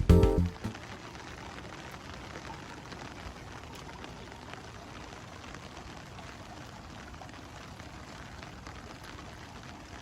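Steady rain falling, an even hiss with faint scattered drop ticks, after background music cuts off in the first half second.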